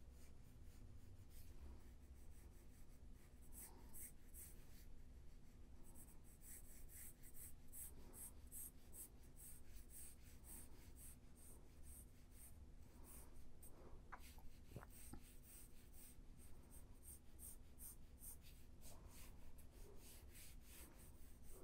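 Faint, quick scratching strokes of a drawing tool laying down sketch lines, coming faster from about six seconds in.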